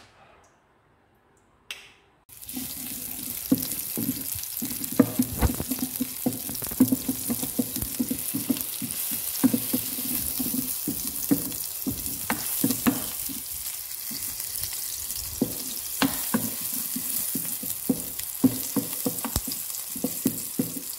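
Chopped onions sizzling in hot oil in an electric nonstick pot, starting suddenly about two seconds in, while a wooden spatula stirs them with irregular scrapes and knocks against the pan.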